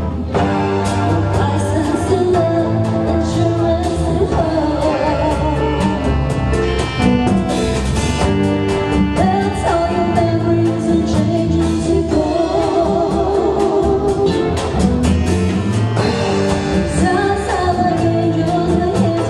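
Live dance band playing a mellow pop song, a lead vocalist singing with vibrato over bass and a steady drum beat.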